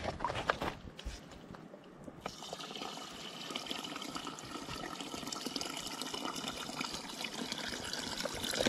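Water poured from above into a metal pot standing on a campfire: a steady pouring sound starts about two seconds in and grows slowly louder as the pot fills. A few sharp crackles from the wood fire come before it.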